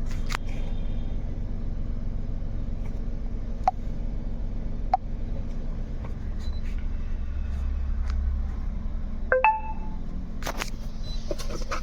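Nissan Micra petrol engine idling steadily, running again after a new fuel pump assembly cured its crank-but-no-start fault. A few sharp clicks sound over it.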